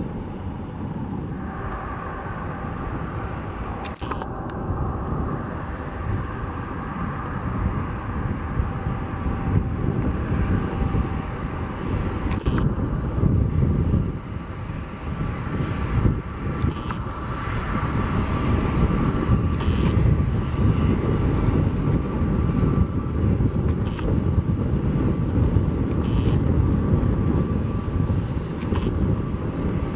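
Airbus A330-200's twin Pratt & Whitney PW4000 turbofans running as the airliner rolls out after landing and slows to taxi speed. They make a steady rumble with a high whine, growing louder in the second half.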